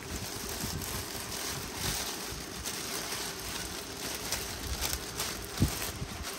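Clear plastic wrapping bag crinkling and rustling as it is handled and pulled off a leather handbag, with one low bump about five and a half seconds in.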